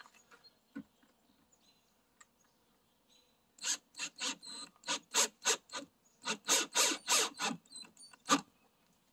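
Cordless drill driving a short screw into the boat's top edge in a quick series of short bursts, about three a second, starting about three and a half seconds in.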